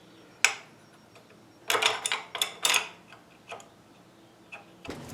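Metal hardware clicking and clinking as the kickstand extension plate and its bolts are fitted against the kickstand: one sharp click, then a quick cluster of clinks and knocks, then a few faint ticks.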